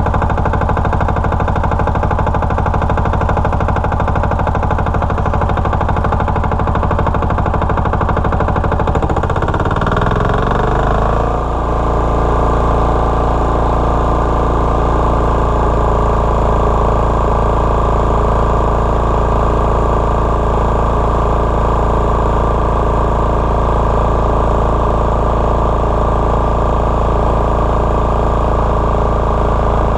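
Single-cylinder Lombardini 15LD400 diesel engine of a generator running steadily. Its speed shifts about ten seconds in, with a brief dip in level, then it settles and runs steady again.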